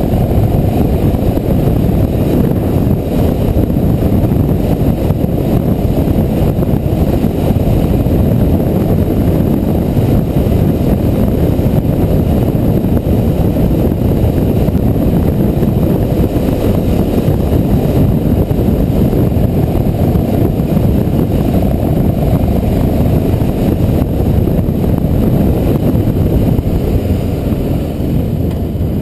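Motorcycle riding at road speed, heard from a camera mounted on the bike: a steady rush of wind noise on the microphone over the running engine. It gets a little quieter near the end.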